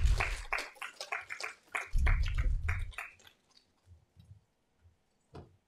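Scattered hand clapping from a small audience: quick, separate claps that die away about three seconds in. Low thumps sit under the claps at the start and again around two seconds in.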